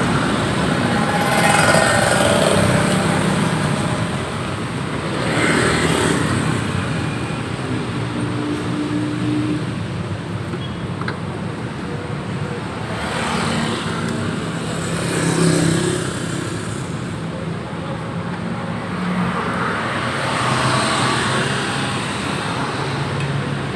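Road traffic: cars and motorcycles passing one after another, each swelling up and fading over a few seconds.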